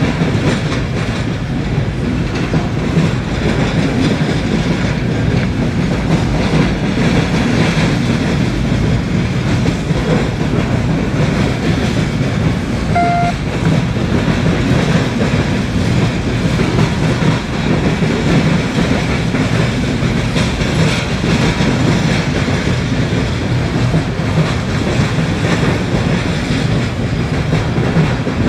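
Ore hopper cars of a BNSF iron ore train rolling past at steady speed: a continuous, even rumble of wheels on rail.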